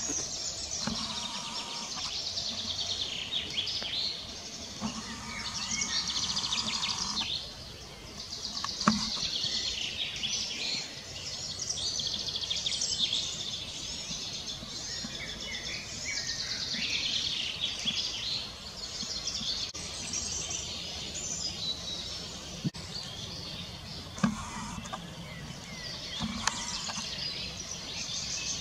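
Songbirds singing: a dense, continuous chorus of high chirps and trills, with two short knocks standing out.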